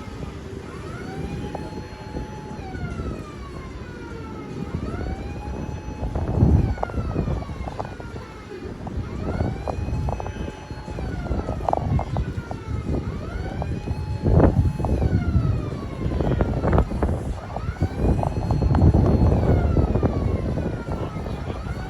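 A siren wailing in a repeating cycle, rising, holding and falling about every four and a half seconds. Low rumbling noise swells loudly a few times underneath it.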